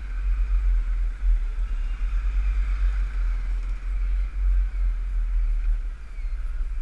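Wind buffeting the microphone of a helmet-mounted action camera on a moving motorcycle, a heavy fluctuating rumble over steady engine and road noise. It eases a little about six seconds in.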